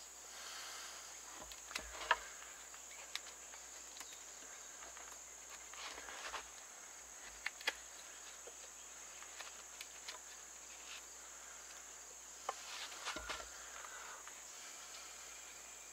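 Knife blade cutting and scraping into a green wooden stick while carving a notch: soft scrapes and a few sharp clicks scattered through. Underneath, a steady high insect drone.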